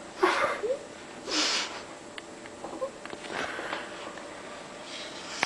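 Mouth and breath noises from people eating spaghetti: two short rushes of air, about a quarter second and a second and a half in, with small clicks and brief squeaks between.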